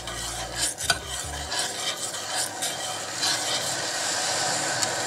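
A spoon stirring a sugar, honey and lemon mixture in a saucepan, scraping steadily round the pot, with a few sharp knocks against it in the first second.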